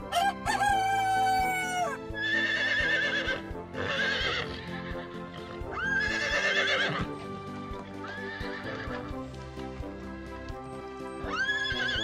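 A rooster crows once at the start. Then horses whinny several times, in quavering calls a second or so long. Background music plays throughout.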